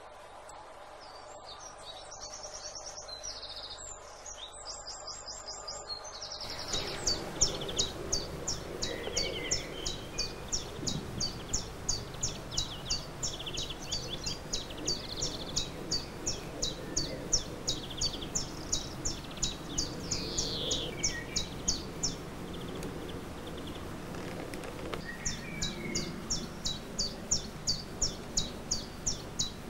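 Birds singing over a steady outdoor background noise. From about six seconds in, one bird repeats a short high chirp two to three times a second, stops for a few seconds near the end and starts again, while other birds call now and then.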